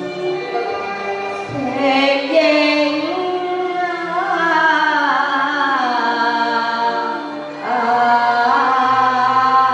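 Cantonese opera song: a long, sliding melody line over the accompanying ensemble, with no lyric words sung.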